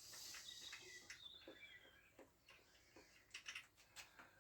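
Near silence: faint bird chirps in the first half, then a few light clicks near the end.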